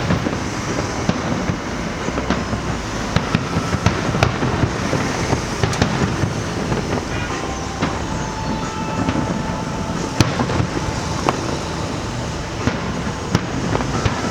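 Fireworks going off in quick succession: a continuous rumble of bursts with many sharp cracks scattered through it, and a few faint whistling tones in the middle.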